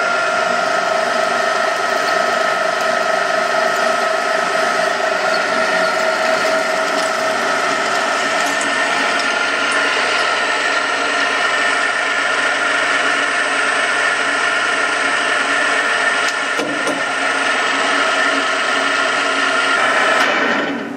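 Cormak XZ6350ZB milling machine's geared spindle drive running steadily with a constant gear whine while drilling steel under its power quill feed. The sound cuts off suddenly near the end as the machine is switched off.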